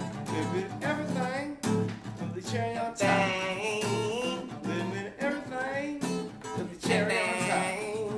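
Acoustic guitar strummed steadily, with a voice singing over it in long held, wavering notes.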